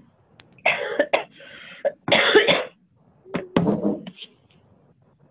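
A person coughing about three times, heard through a telephone line that cuts off the higher frequencies.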